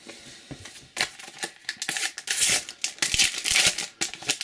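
Panini FIFA 365 sticker packet being torn open by hand, its wrapper crinkling and tearing in a run of sharp crackles that starts about a second in and lasts about three seconds.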